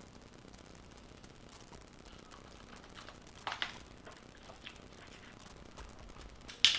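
A few short cracking and crinkling sounds of cooked crawfish shells being broken and peeled by hand, separated by quiet stretches. There is one about three and a half seconds in, and a louder, sharper one near the end.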